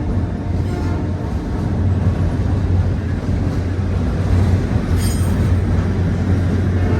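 Train passing close by at trackside, a steady heavy rumble from locomotive and cars rolling on the rails. A brief high wheel squeal comes about five seconds in.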